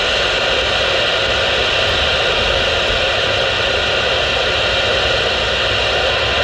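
President McKinley CB radio speaker giving a loud, steady static hiss between transmissions.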